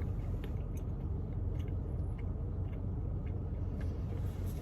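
A person chewing a mouthful of Blizzard soft serve full of gummy worms and Oreo pieces, with a few faint clicks, over a steady low rumble.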